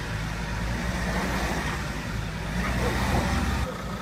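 Van engine running under load, getting louder about two and a half seconds in as it works to free an ambulance stuck in mud. The sound drops off suddenly shortly before the end.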